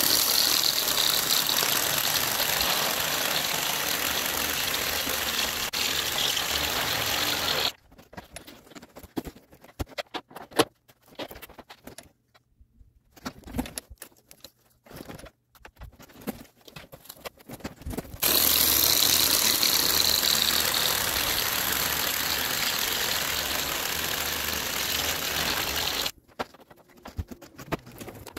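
A power tool cutting a Hardie fiber cement plank lengthwise into strips along chalk lines. There are two long, steady cuts of about eight seconds each, the first stopping near a quarter of the way through and the second starting about ten seconds later, with knocks and handling clatter between them.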